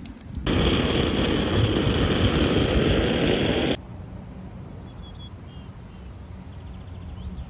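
Beef steaks and sausages sizzling over charcoal on a grill, a loud steady sizzle that cuts off abruptly about three and a half seconds in. After that comes a quiet outdoor background with a few faint high chirps.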